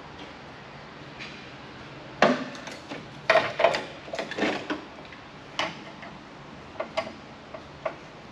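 Irregular clinks and knocks of metal parts and a screwdriver being handled while a telecom equipment chassis is taken apart by hand. There is a quick flurry of them between about two and five seconds in, then a few single knocks.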